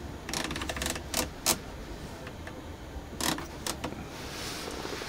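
Scattered sharp clicks and light clatter over a low, steady background hum, with a soft hiss from about four seconds in.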